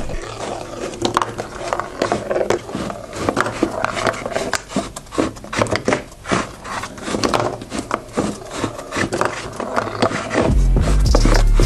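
Glass marbles rolling and clicking across a cardboard marble-run track and escalator, with many small irregular knocks. A loud low rumble comes in near the end.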